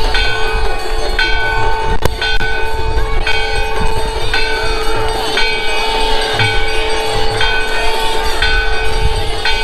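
Temple bells rung rhythmically for the aarti, about one ringing strike a second, over a steady held drone and low drumbeats.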